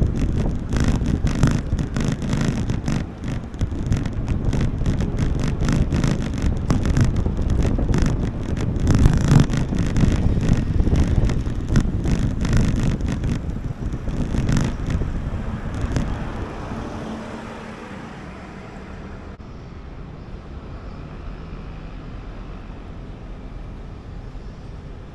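Street traffic noise with wind buffeting the microphone, full of low rumble and sharp knocks. About 16 seconds in it drops to a quieter, steady traffic hum.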